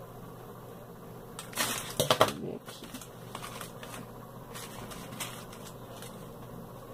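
Hands rummaging in a clear plastic clamshell box of metal rhinestone chain trims, which click and rattle against each other and the plastic. The loudest clatter comes about a second and a half to two and a half seconds in, followed by lighter scattered clicks.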